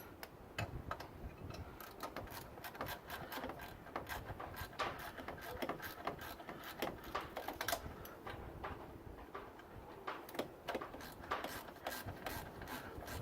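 Metal hand tools clicking and clinking against engine parts and bolts, in irregular sharp clicks, as bolts are worked in by hand.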